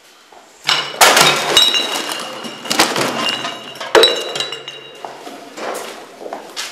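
Glass breaking and clinking: a crash about a second in, then several more sudden smashes and clinks with a high ringing that hangs on, the last loud one about four seconds in, dying away after.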